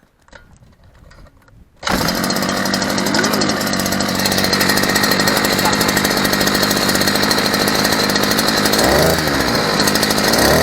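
Small two-stroke outboard motor catching suddenly about two seconds in, then running loud and steady with an even buzzing note.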